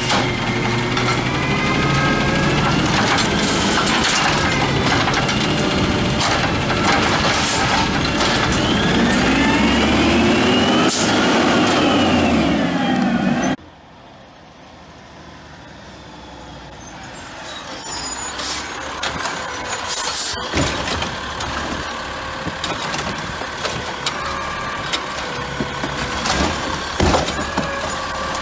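Diesel engine of an automated side-loader garbage truck working along the street, its pitch rising and falling. The sound cuts off suddenly about halfway through. A second side-loader garbage truck's diesel then comes in quieter and builds up as it approaches, with a sudden sharp sound partway and a few knocks.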